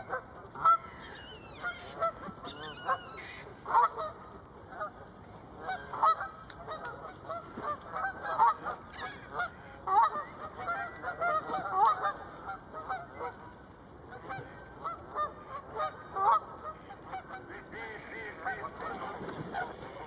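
Canada geese honking, many short calls from several birds overlapping at an irregular pace, some much louder than others.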